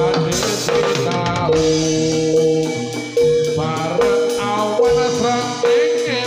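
Live Javanese gamelan music for a jathilan horse dance: metallophones and drums keep a steady beat, with a held note repeating about once a second, while a sinden sings over it.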